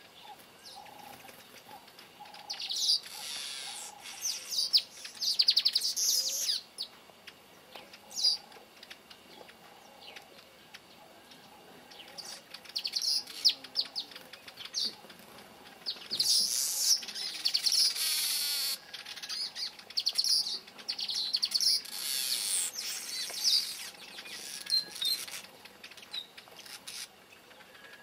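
Male weavers chattering and singing at their nests: scattered bursts of rapid, buzzy twittering, several in a row, with quieter gaps between.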